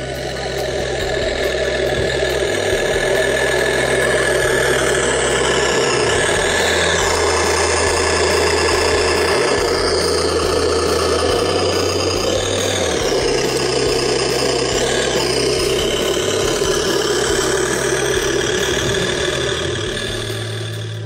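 Engine-sound simulator on a homemade RC tractor, its small speaker playing a tractor engine running steadily.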